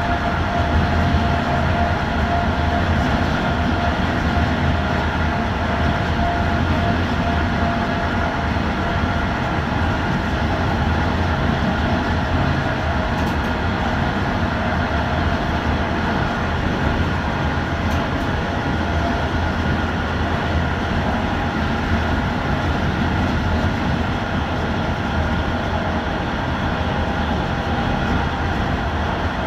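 Electric passenger train running steadily at speed, heard from inside at the rear: a continuous rolling noise of the wheels on the rails with a steady hum, and no regular clickety-clack.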